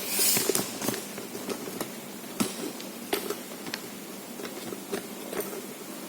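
Footsteps crunching and scraping over a debris-strewn floor, irregular short clicks about one every half second to a second, with a brief hissing scrape at the start.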